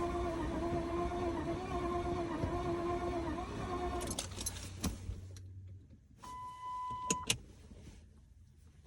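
The Lincoln Town Car's swapped-in 4.6-litre V8 being cranked by the starter with a steady whine for about four seconds without catching, then cut off abruptly. A few clicks follow, then a steady electronic chime tone for about a second, with more clicks.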